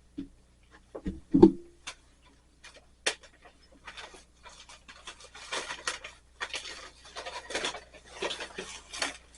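Handling noise on a workbench: a few knocks as things are picked up and set down, the loudest about a second and a half in, then several seconds of rustling and scraping as materials are handled.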